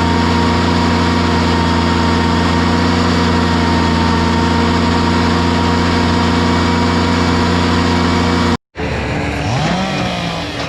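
Heavy machinery engine running steadily at a constant high speed, with a steady whine above it. Near the end it cuts off abruptly, and a different engine sound follows, briefly rising and falling in pitch.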